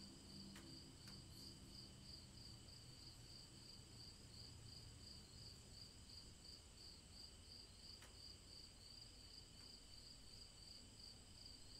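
Faint crickets chirping: a steady, evenly pulsed high trill with a few soft clicks.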